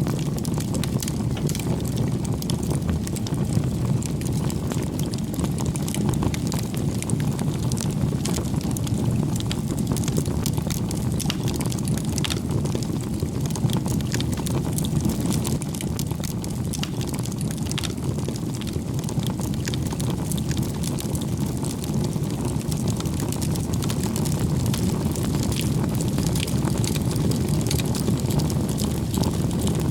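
Bonfire burning: a steady low rush of flames with frequent sharp crackles and pops from the burning wood.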